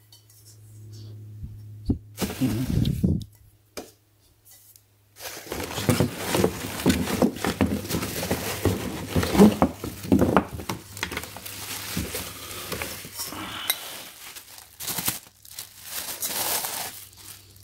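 Clear plastic packing bag crinkling and rustling as a stainless steel saucepan is pulled out of a cardboard box, with light clinks of the metal cookware. There is a short burst of it about two seconds in, then steady handling from about five seconds on.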